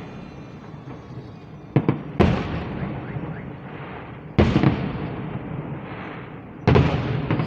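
Aerial fireworks shells bursting: four loud bangs about two seconds apart, the first a small double crack, each trailing off in a long rolling echo.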